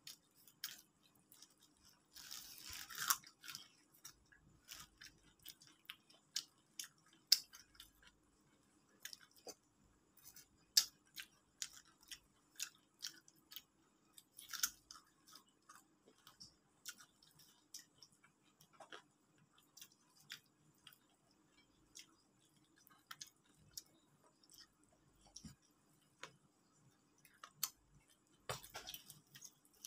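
Close-miked eating sounds of people chewing KFC fried chicken by hand: irregular crunches, wet chewing and smacking clicks, with a longer crackly stretch about two to three seconds in and again near the end. A faint steady hum runs underneath.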